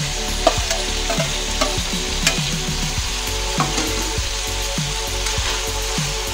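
Ground pork and diced ham frying in oil in a steel wok, sizzling steadily, with a few sharp clinks and scrapes of a metal spatula against the wok as the meat is stirred.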